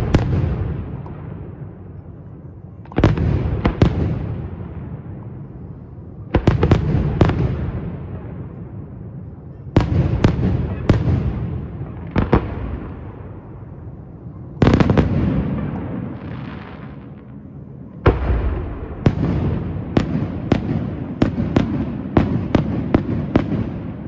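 Aerial firework shells bursting with loud booms, each followed by a rolling echo that dies away; the bursts come singly or in pairs every few seconds, then about three-quarters through give way to a quicker run of reports.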